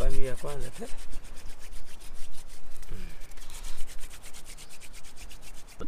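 Wooden hand drill spun between the palms against a wooden hearth board to make fire: a rapid, even rubbing of wood on wood in quick repeated strokes.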